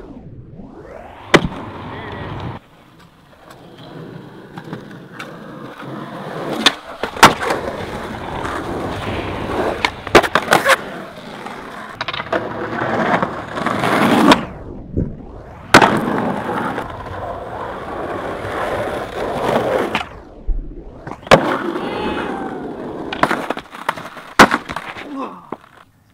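Skateboard wheels rolling on concrete, broken by about eight sharp wooden clacks of the board popping and landing. The rolling cuts out abruptly and restarts a few times as separate runs follow one another.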